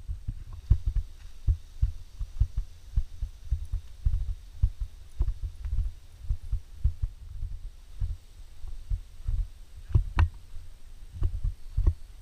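Walking footsteps heard as dull, even thuds through a body-worn camera, about two a second, with one sharper knock about ten seconds in.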